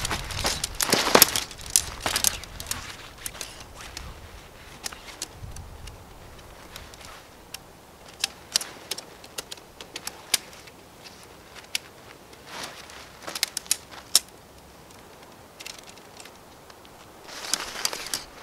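Shock-corded metal tent poles clicking and clinking as their sections are unfolded and snapped together, with rustling handling noise in the first couple of seconds and again near the end.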